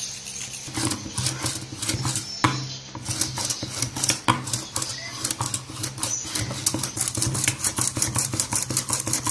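A utensil stirring a wet mix of beaten egg, corned beef and cornstarch in a bowl, with quick, irregular clicks and taps against the bowl.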